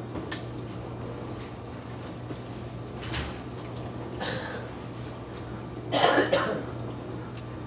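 Oven door shut with a short click just after the start, over a steady low hum; about six seconds in a person coughs, a short double cough that is the loudest sound.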